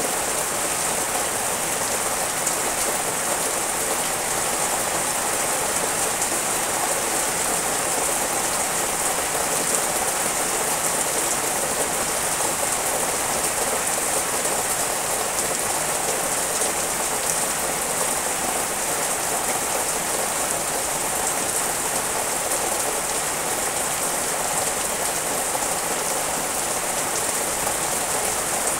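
Rain falling steadily on trees and leafy shrubs: an even, unbroken hiss with no let-up.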